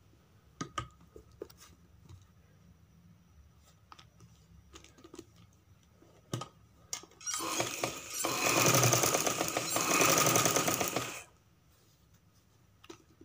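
Domestic sewing machine running a seam in one burst of about four seconds, starting about seven seconds in and stopping abruptly. Before it there are a few light clicks and handling noises as the cloth is positioned under the needle.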